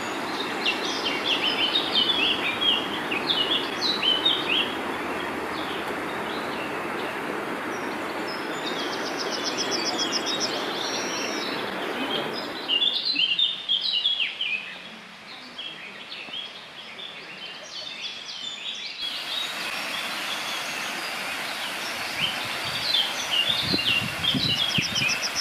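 Steady rushing of water pouring over a stream weir, with songbirds chirping over it. About halfway through the rush drops away for several seconds, leaving mostly birdsong, then the rushing of a waterfall returns.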